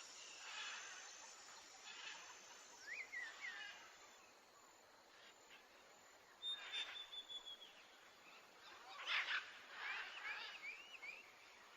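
Faint wild birdsong: scattered chirps and whistles, with a short held whistle about six and a half seconds in and a quick run of arched chirps near the end, over soft outdoor hiss.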